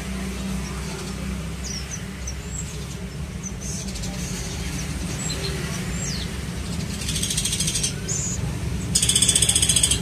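Steady low rumble of passing motorbike traffic, with faint high chirps from nestling birds. Near the end come two loud, rapid, high trills, about a second each.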